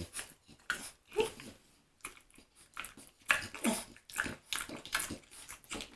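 A French bulldog making short sounds, a couple of them falling in pitch, mixed with sharp clicks of dog nail clippers cutting its nails.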